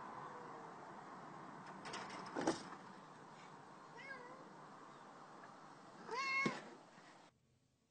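Cat meowing: a couple of faint short meows, then one louder meow near the end. There is a knock about two and a half seconds in.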